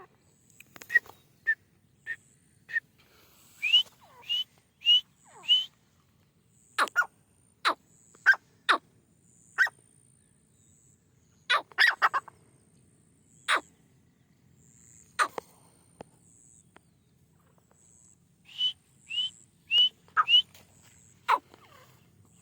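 Partridges (teetar) calling: loud, short, sharp calls at irregular intervals, with two runs of four quick rising notes, a few seconds in and again near the end.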